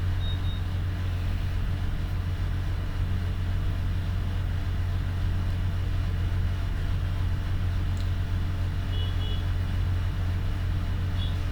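A steady low hum and rumble of background noise that does not change, with a few faint, brief high tones near the end.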